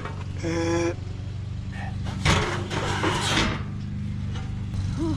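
A vehicle engine running steadily with a low hum throughout. A short pitched tone sounds about half a second in, and a burst of clattering noise comes about two to three and a half seconds in.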